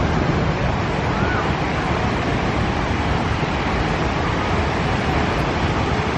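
Steady beach ambience: wind rumbling on the microphone over a wash of surf, with faint distant voices.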